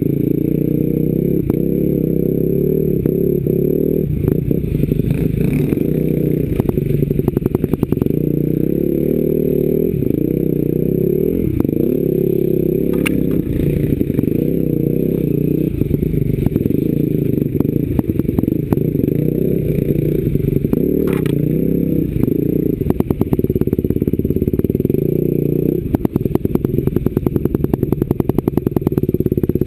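Enduro motorcycle engine running and changing pitch as the throttle opens and closes while the bike is ridden over rough ground, heard close up from on the bike, with rattling from the bike as it goes.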